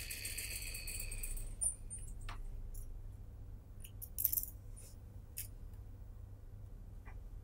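Industrial lockstitch sewing machine running with a steady high whine as it stitches a padded sleeve seam, stopping about a second and a half in. After that come a few light clicks and knocks from handling the sewn sleeve, the loudest about four seconds in.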